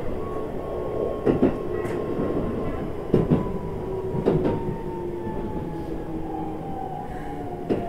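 Keikyu New 1000 series electric train heard from inside the car while running. Its traction-motor whine falls slowly in pitch as the train slows, and a few sharp clacks cut in now and then.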